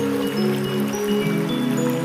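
Background music of held notes that shift pitch every half second or so, over a steady hiss of shallow river water running over stones.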